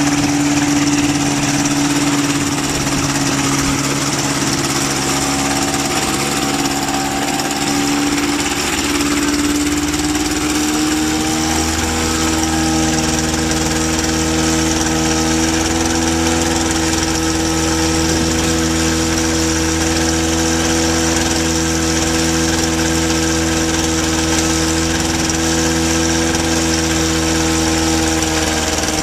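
Kitfox light aircraft's engine running steadily on a ground run, its pitch rising slightly about ten seconds in and then holding.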